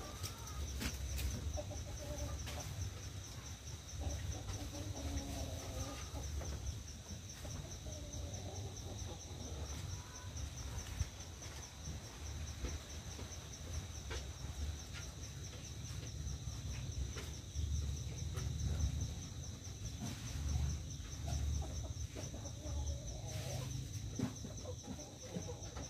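Domestic hens clucking now and then over a steady, high, pulsing insect trill.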